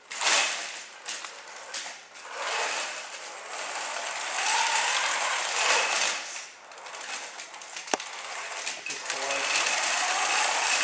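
Robot drivebase on mecanum wheels driving on carpet: the electric drive motors and gearboxes whine and rattle, the whine rising and falling in pitch as the robot speeds up, slows and turns, with one sharp click about eight seconds in.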